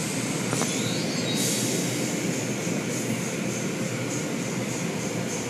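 Automatic tunnel car wash running: a steady rush of water spray and wash machinery.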